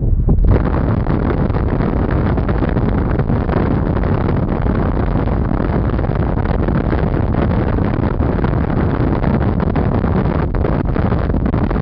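Strong wind buffeting the microphone: a loud, steady low rumble and rush that fills out about half a second in.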